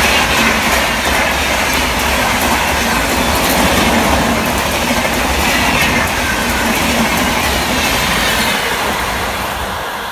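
Rajdhani Express LHB passenger coaches running past at speed: a loud, steady rush of wheels on rail with a rhythmic clickety-clack over the rail joints and a faint falling whine. It starts to fade near the end as the last coach goes by.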